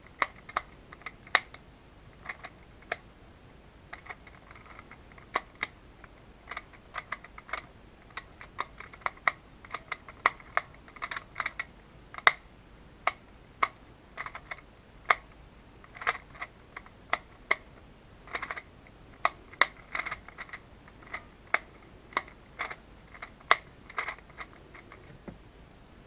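Custom magnetic Rubik's Clock being solved at speed: rapid, irregular clicking as its pins are pushed and its dials are turned into place by hand, with some quick runs of clicks close together.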